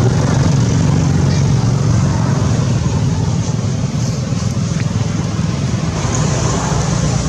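A motor running steadily, heard as a loud low rumble with a constant hum.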